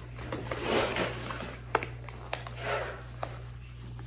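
Handling noise of a freshly unboxed Dino Cube puzzle and its packaging: a few swells of rustling with several short sharp clicks, over a steady low hum.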